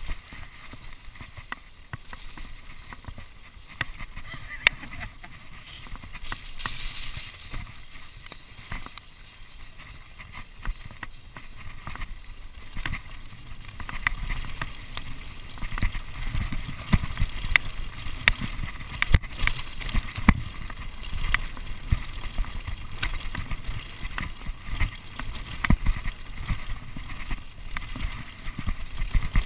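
Mountain bike running fast down a rough dirt track: tyres rumbling over the ground, with frequent sharp knocks and rattles from the bike over bumps. The rumble grows heavier about halfway through.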